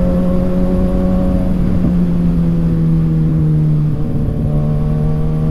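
Kawasaki Ninja ZX-6R's inline-four engine running at steady revs while riding, with wind rumble on the microphone. The engine note dips briefly about four seconds in, then carries on a little lower.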